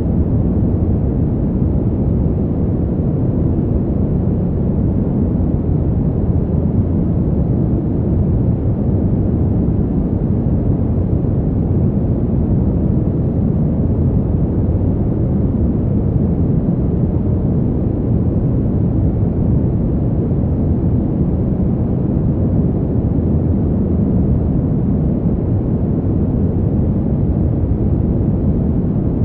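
Fan heater's blower running steadily: an even, deep rushing noise, heaviest in the low end with little hiss, unchanging throughout.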